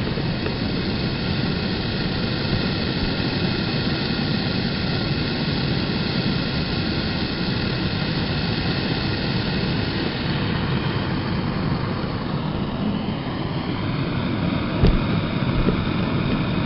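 Home-built Reil-style propane forge burner, with a 0.030 MIG welding tip as its gas jet and a flare tip on the end, burning steadily with a constant rushing noise of gas and flame. The flare tip has it burning well. A short knock sounds near the end.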